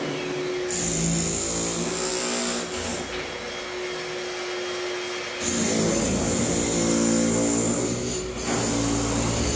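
Background music: sustained chords that change every second or so, growing fuller about five seconds in.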